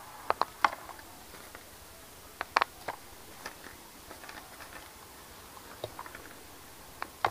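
Small lumps of calcium carbide clicking against each other and a thin plastic bag crinkling as pieces are picked out by hand. The sound comes as small clusters of sharp clicks: just after the start, around two and a half seconds in, and near the end.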